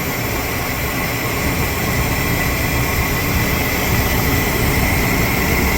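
1998 Chevrolet Silverado pickup engine idling steadily, its newly replaced alternator charging, with a thin steady high whine over the rumble.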